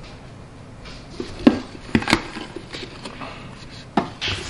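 Metal measuring cup knocking against a plastic food processor bowl as flour is tipped in: a few sharp taps, the loudest about one and a half to two seconds in, and one more about four seconds in.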